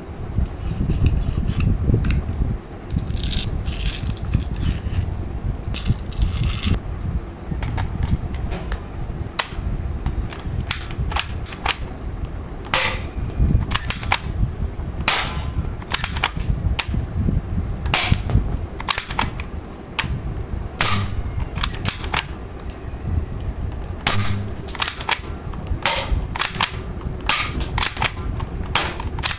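Toy AK-47 gun firing sharp single cracks at irregular intervals, sometimes several in quick succession, over a steady low rumble.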